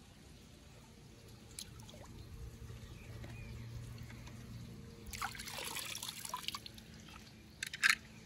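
Pool water splashing and trickling as a hand fishes die-cast toy cars out of a swimming pool, loudest about five seconds in. Near the end come a few sharp clicks as the metal toys are set down on the stone edge.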